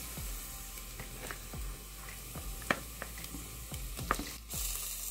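Chopped onion and garlic sizzling in oil in a pot, with a series of short knocks from a wooden spoon as raw ground beef is scraped from a container into the pan. The loudest knock comes about halfway through.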